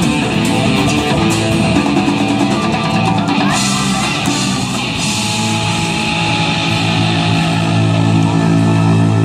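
Live rock band playing, with electric guitar and drum kit. The drum hits stop about halfway through and a held chord rings on.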